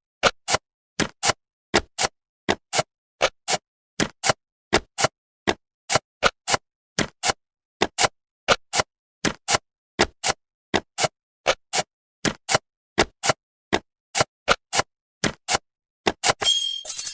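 Jigsaw puzzle pieces snapping into place: a sharp click sound effect repeated about twice a second at uneven spacing, with dead silence between clicks. Near the end a short, bright musical jingle starts.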